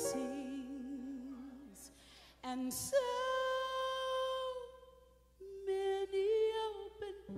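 A woman singing a gospel solo with little accompaniment, holding a few long notes, the first with a wide vibrato.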